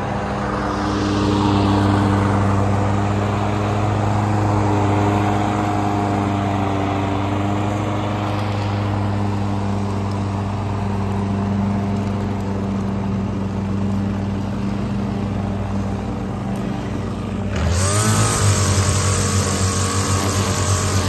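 String trimmer running with a steady, even hum. About 17 seconds in it gets louder and brighter, with a hissing edge and a wavering pitch.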